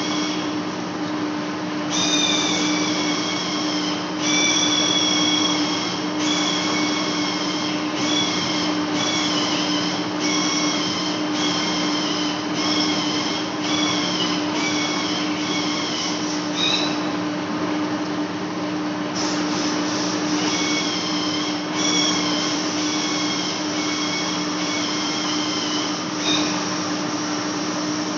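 Large lathe facing a metal flange: a steady machine hum with a high-pitched cutting squeal that keeps breaking off and returning, in stretches of about a second, each sliding slightly down in pitch. The squeal drops out for a couple of seconds past the middle, then comes back.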